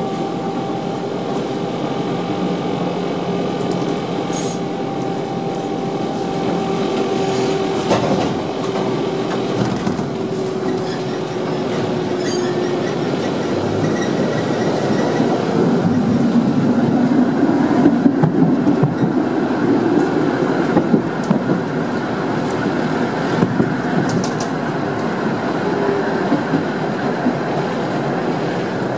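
Tram running, heard from inside the driver's cab: a steady whine for the first several seconds, then the rumble of wheels on rails growing louder midway, with scattered clicks and knocks.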